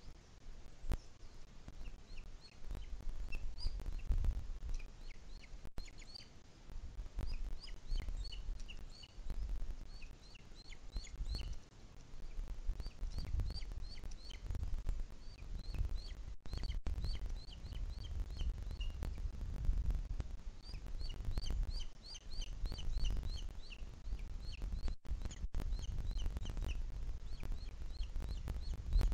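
Booted eagle chick calling in short series of thin, high-pitched notes, repeated again and again, typical of begging while the adult feeds it. A low rumble runs underneath.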